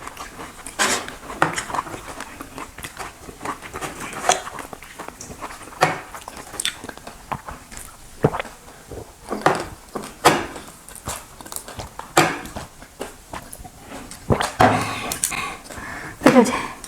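Close-up eating sounds: chewing and mouth smacks from someone eating fried fish and pakhala (watery fermented rice). They come as irregular sharp clicks and smacks.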